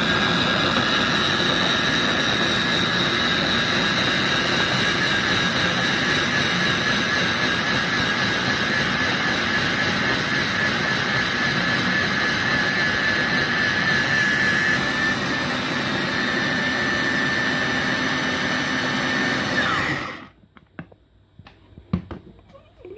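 Russell Hobbs blender running at full speed, grinding cooked masala and cashews into a smooth gravy: a steady high-pitched motor whine that cuts off suddenly about twenty seconds in, followed by a few light knocks.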